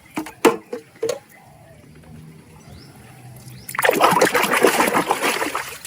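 A few light clicks and knocks of a plastic toy being handled, then, about three and a half seconds in, two seconds of splashing water as a muddy toy is washed.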